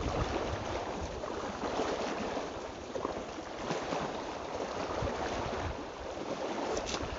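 Wind on the microphone and small waves lapping at a rocky lakeshore, a steady rushing noise.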